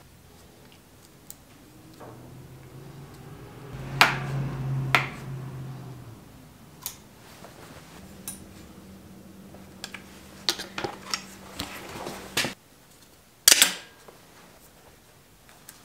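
Sharp metallic clicks and snaps of a cable cutter and hand tools working bicycle V-brake cables, with the loudest snaps about four and five seconds in and again near the end. A low steady hum runs under the middle part.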